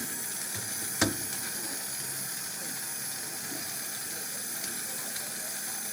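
Gas brazing torch flame hissing steadily while refrigerator copper tubing is soldered, with one sharp metallic click about a second in.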